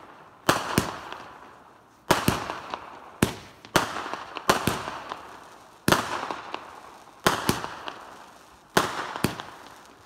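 Aerial fireworks shells bursting: sharp bangs about every second, many in quick pairs, each followed by a crackling fizz that fades away.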